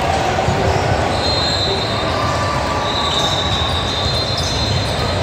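Basketball game in a gym: steady crowd chatter and court noise, with several high drawn-out squeaks from sneakers on the hardwood floor.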